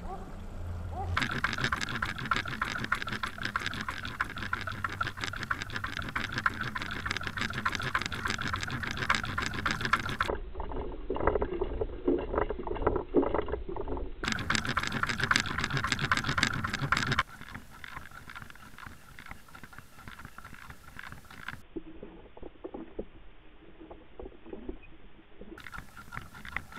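Trolling boat's outboard motor and rushing water as picked up by an underwater camera: a dense, churning noise with a steady whine, dropping to a quieter level about 17 seconds in.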